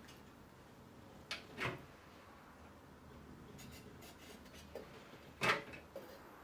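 A Prometheus enameling kiln's door unlatched with a click and swung open, then a firing fork sets the piece's metal trivet down inside the hot kiln with a louder metal knock and scrape about five seconds in.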